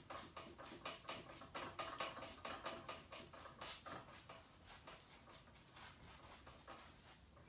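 Faint, rapid scratching of a paintbrush laying acrylic paint onto stretched canvas in short criss-cross X strokes, a few strokes a second, growing fainter near the end.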